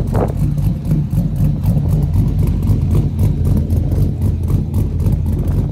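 Pickup truck's engine idling steadily, heard close to its exhaust pipe as a low, even exhaust note with a quick regular pulse.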